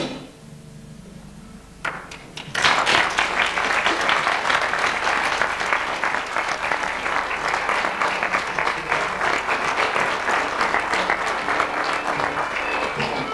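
Audience applause, starting with a few claps about two seconds in and swelling to steady, full clapping that holds to the end.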